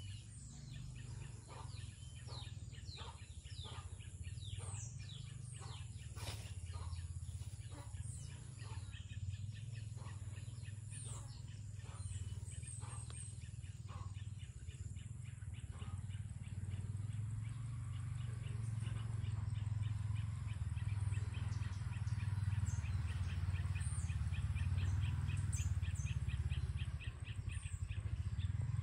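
Outdoor ambience of birds chirping with steady high insect tones, over a low steady rumble. Short scattered chirps fill the first half, and a fast, evenly repeated chirping takes over from about halfway through.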